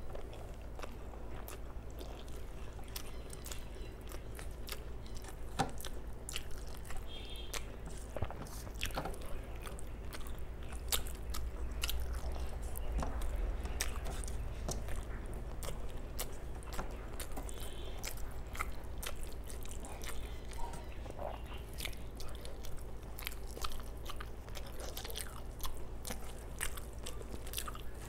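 Close-up eating sounds of a person eating rice and mutton curry by hand: chewing, wet mouth clicks and lip smacks, with fingers mixing rice on a steel plate. Many small irregular clicks over a steady low hum.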